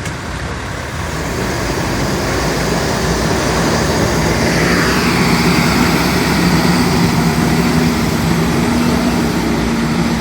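A motor engine running close by, growing louder over the first few seconds and settling into a steady low hum, with a brief falling whine about halfway through.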